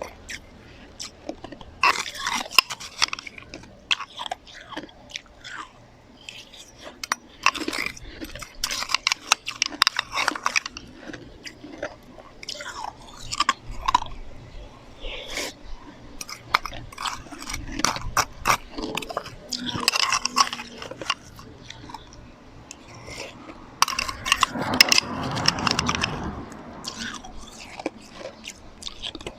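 Close-miked crunching and chewing of slushy ice, in bouts of sharp crackling bites with short pauses between them, thickest about three-quarters of the way through.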